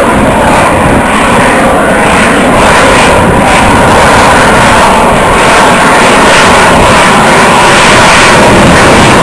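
F-22 Raptor's twin Pratt & Whitney F119 turbofans: loud, steady jet noise as the fighter banks overhead.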